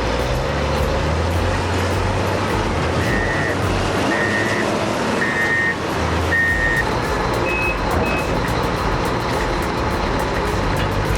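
Heavy machine's reversing alarm beeping four times about once a second over a steady diesel engine rumble, followed by two shorter, higher-pitched beeps.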